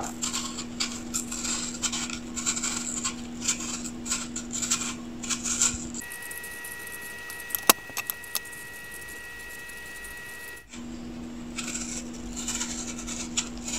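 Kitchen knife paring the skin off an apple: a run of short, crisp cutting and scraping strokes over a steady low hum. Partway through the cuts go faint for a few seconds and a higher steady tone replaces the hum, then the strokes resume.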